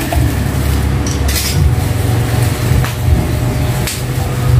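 Plastic bubble-wrap packaging being cut and pulled open, giving a few short scratchy rustles, the longest about a second in and another near the end, over a steady low hum.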